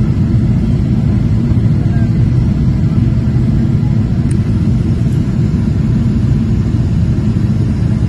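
Steady low rumble of jet engine and airflow noise inside an airliner cabin, heard at a window seat over the wing during the descent to land.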